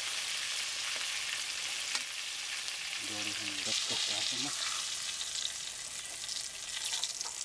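Quail pieces deep-frying in hot oil in a steel wok, a steady sizzle, with a metal spatula stirring and turning them.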